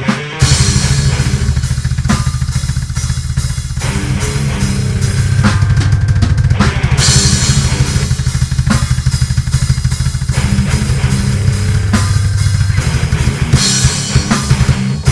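Death metal music: very fast kick drum under sustained low bass and guitar notes, with snare and cymbals.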